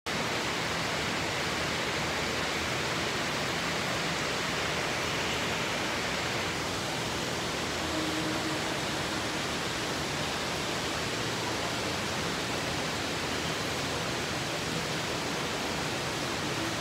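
Steady, even rush of water falling into a koi pond, unbroken throughout.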